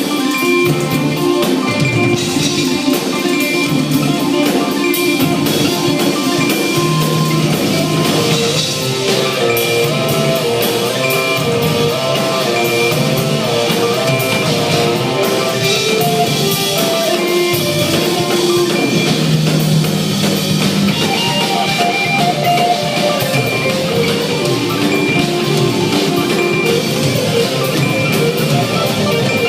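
Rock band playing live at a sound check: electric guitar over a drum kit, loud and continuous.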